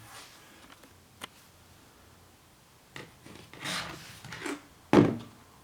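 Camera packaging being handled during an unboxing: a faint click about a second in, soft rubbing and sliding of the box around three to four seconds, and a sharper knock just after five seconds.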